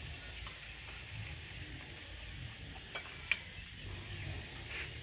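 Light clinks of metal tableware, a spoon and a small steel bowl on a table, with two sharp clicks about three seconds in, over steady background noise.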